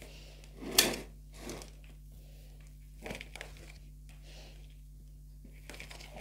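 A plastic plant pot pulled across a tiled floor with one short, sharp scrape about a second in, then a few soft rustles of hands working potting soil in the pots.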